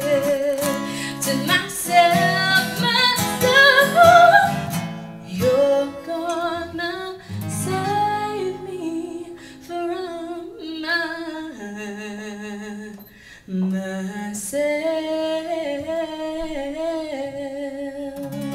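A woman sings long held notes with vibrato over strummed acoustic guitars in a live performance. The sound dips briefly about two-thirds of the way through.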